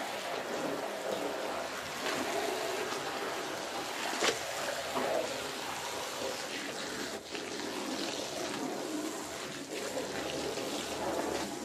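Steady running, trickling water on a wet floor while a soaked, soapy rug is pulled and unfolded on it, with a sharp tap about four seconds in.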